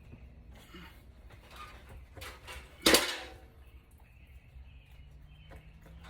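Faint handling and rubbing as a PVC drain pipe is worked into a rubber flex coupling, with one sharp knock about three seconds in that rings briefly.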